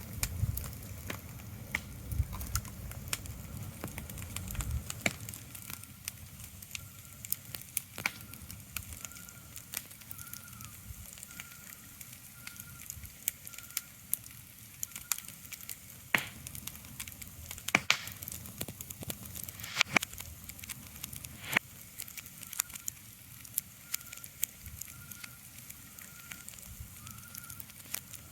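Crackling fire, with irregular sharp pops and snaps over a low hiss. A faint high chirp repeats a little faster than once a second from about a quarter of the way in.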